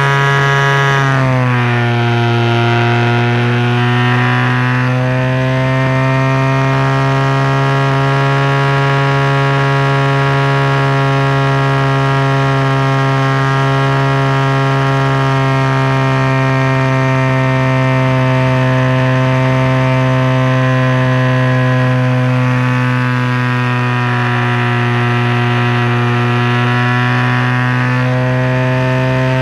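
DLE 20 single-cylinder two-stroke petrol engine of a radio-controlled model plane, turning an APC 16x8 propeller in flight, heard up close from on board. It runs steadily, its pitch dropping sharply about a second in, lifting a little a few seconds later, dipping again later on and rising near the end.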